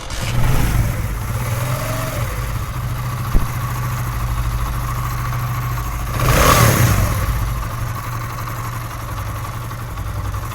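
Motorcycle engine running at idle, with a brief rev about six seconds in. It is the sound after a fix: the noise that a mechanic had blamed on a worn connecting rod came from a loose coil, now packed and glued in place.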